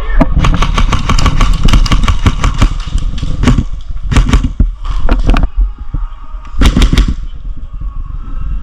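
Airsoft guns firing: a fast string of sharp shots for about three and a half seconds, then three short bursts, over a low rumble on the camera microphone.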